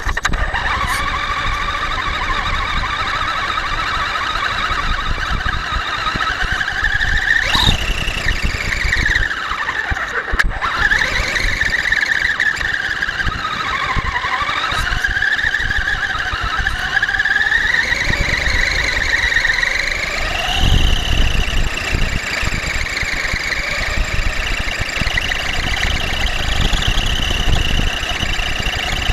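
Electric Traxxas Stampede RC monster truck's motor and gears whining as it is driven. The pitch rises and falls with speed, dropping low twice and climbing again, over a steady rumble.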